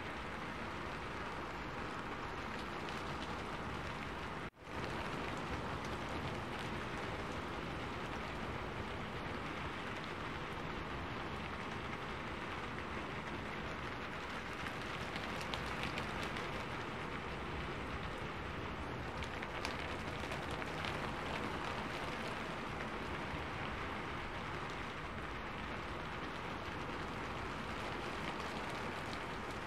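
Steady rain falling, an even hiss of rainfall. It cuts out for a split second about four and a half seconds in, then carries on.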